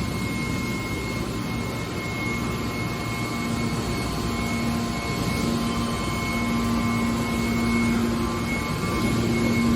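Hydraulic scrap metal baler running: a steady machine drone with a steady high whine and a low hum that grows stronger about halfway through.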